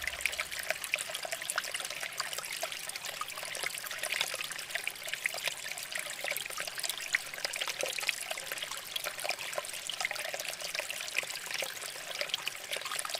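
Water trickling steadily from a small handmade tabletop waterfall fountain: a continuous patter of many small splashes.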